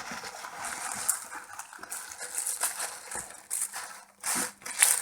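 Shredded-paper packaging rustling and crinkling as it is handled and cleared from the box, with a few sharp clicks.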